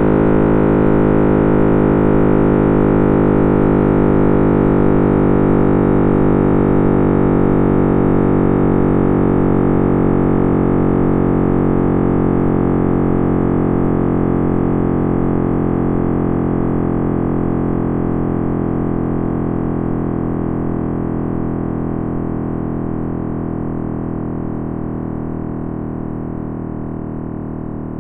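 Synthesized deep drone, a dense chord of many steady overtones, slowly fading and growing duller: an audio rendering of the Big Bang's sound.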